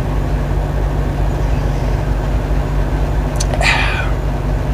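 Idling truck engine: a steady low rumble. A short, higher sound breaks in about three and a half seconds in.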